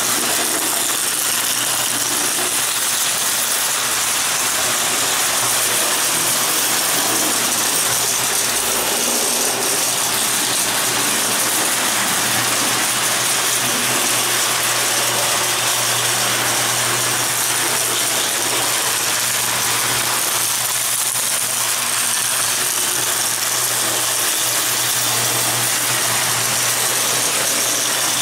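Prewar Lionel tinplate trains running on three-rail track: a steady mechanical rattle of wheels and geared motors, over a constant low hum.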